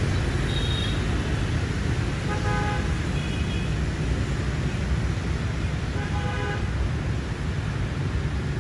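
City street traffic, a steady rumble of passing vehicles, with several short vehicle-horn beeps scattered through it.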